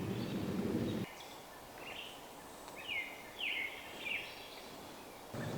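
Small songbirds chirping in the woods: a handful of short, downward-slurred chirps, the clearest bunched near the middle. For the first second a low rumbling background noise is heard, which cuts off suddenly and comes back just before the end.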